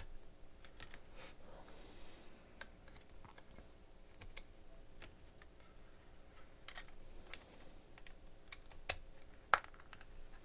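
Scattered small clicks and taps of a plastic camera shutter release remote being handled as batteries are fitted back into it, with two sharper clicks near the end.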